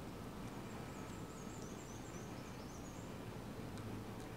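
Outdoor ambience: a small bird gives a faint, quick series of high chirps for a couple of seconds over a steady low hum, with a few faint clicks near the end.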